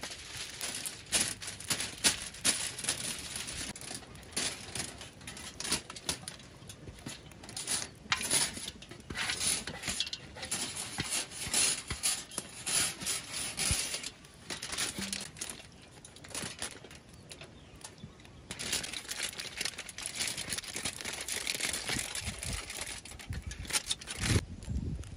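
Aluminium foil crinkling and rustling in bursts as it is unrolled, spread out and folded around a pile of food, with quieter pauses between.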